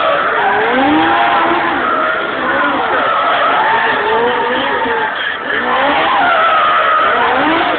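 Car drifting in tight circles, tyres squealing loudly with a pitch that keeps rising and falling, the engine revving along with it.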